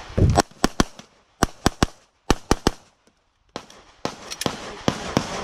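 Pistol fired in a rapid IPSC string: sharp shots in quick pairs and triples, a short pause about three seconds in, then more fast shooting.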